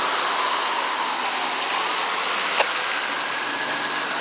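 Steady hiss of highway traffic passing, with a faint tone that dips and rises again and a single sharp click a little past halfway.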